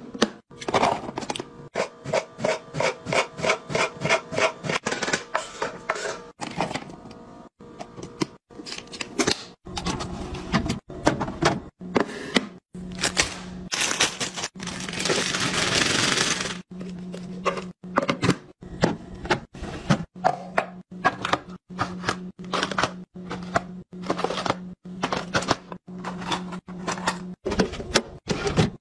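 Restocking handling sounds: plastic containers and lids clicking and knocking in quick succession, and a few seconds of loud crinkling and rattling about halfway through as chips are poured from a bag into a container. Background music runs underneath.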